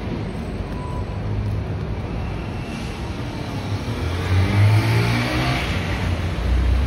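City street traffic with a steady engine drone; about four seconds in, one vehicle accelerates past, its engine pitch rising.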